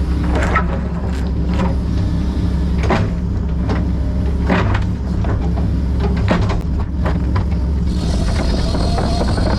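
Tracked excavator's diesel engine running steadily under work, with repeated knocks and scrapes from the machine working. A hiss joins in about eight seconds in.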